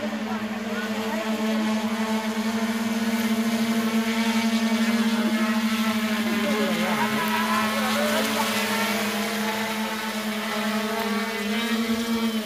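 Electric motors and propellers of a radio-controlled VTOL drone plane humming steadily overhead. The hum grows louder a few seconds in as the plane passes close, and rises slightly in pitch near the end as it comes in to hover.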